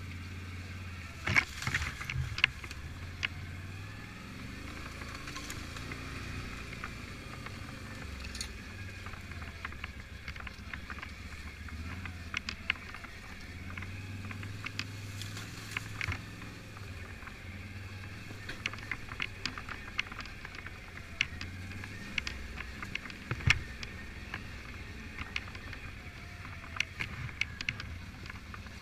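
Quad (ATV) engine running at low speed, its pitch stepping up and down with the throttle as it picks its way along a rough trail. Frequent sharp knocks and scrapes come from rocks and brush.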